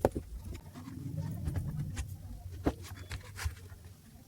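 A few sharp clicks and knocks of tools and drill parts being handled, with a low hum from about one to two seconds in.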